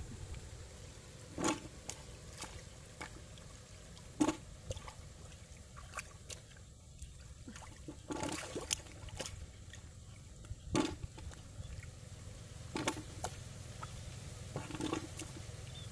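Hands splashing and sloshing in shallow, muddy ditch water, with short splashes every couple of seconds.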